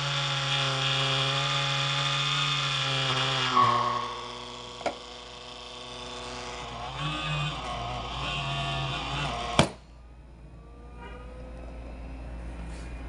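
CoolCold cooler's fans running with a loud vibrating buzz, the hum stepping down in pitch twice as the speed changes. A click comes about five seconds in and another sharp click near ten seconds, after which the buzz is much quieter.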